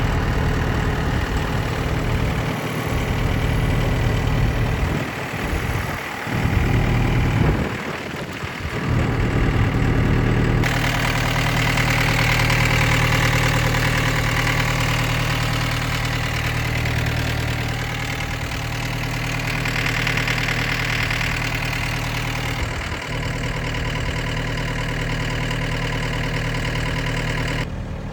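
Gehl R190 skid steer loader's diesel engine running steadily. About ten seconds in it steps up to a fuller, brighter sound, as when the throttle is raised, and it drops back just before the end.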